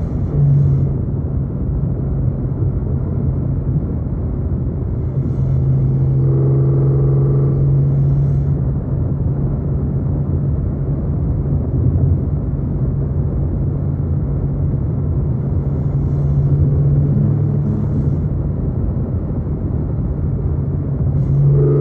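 BMW E46 M3's inline-six, breathing through a Supersprint exhaust, running at a steady part-throttle cruise. Its exhaust drone holds an even pitch for most of the stretch, with only brief changes in note now and then.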